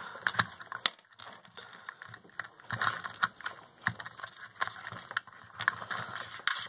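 Small plastic parts and wires of a homemade RC car chassis being handled by hand: irregular clicks, taps and rustling, with one sharp click about a second in.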